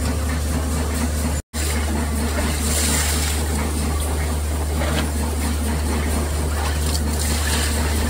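Steady low mechanical hum of factory machinery under a constant hiss, cutting out completely for a moment about a second and a half in. Near the end, water splashes as it is poured over screws in a perforated bucket to rinse them.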